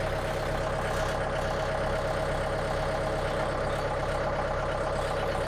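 Tractor engine running steadily, with a constant mid-pitched drone and no change in speed.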